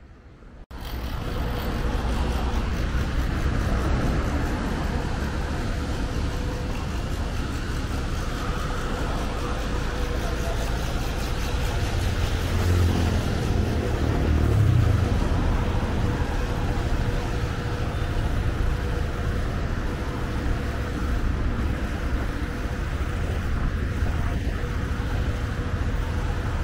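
Road traffic on a multi-lane highway: a steady rush of cars going by, which starts suddenly about a second in. A vehicle passes closer and louder about halfway through.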